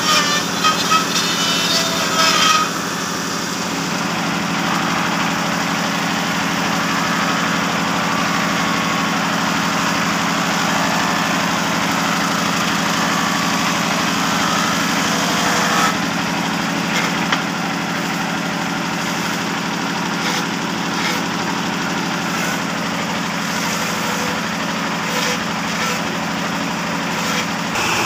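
Electric hand router running and cutting a groove along a wooden board for the first couple of seconds, then a table saw's motor running steadily with a circular blade cutting boards.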